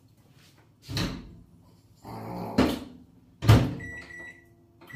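Kitchen counter handling while making coffee: a knock about a second in, a short scrape ending in a sharp click, then a loud clunk about three and a half seconds in that rings briefly.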